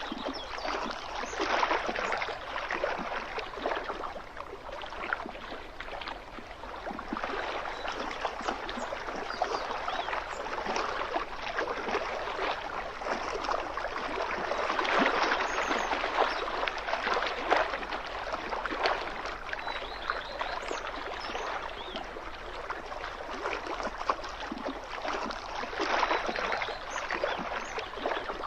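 Small waves lapping and gurgling against a lake shore, a steady wash of little splashes that swells and fades in loudness, loudest a little past the middle.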